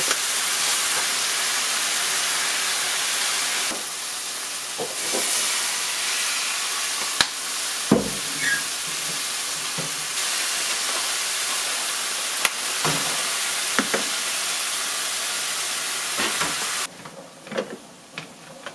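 Kimchi fried rice sizzling hard in a frying pan, with the spatula scraping and tapping the pan a few times as it is stirred. The sizzle drops off suddenly near the end.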